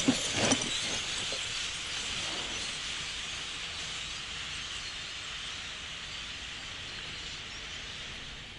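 A huge flock of birds passing overhead, their many calls merging into a steady, high din that slowly fades. Two brief, louder sounds come in the first half second.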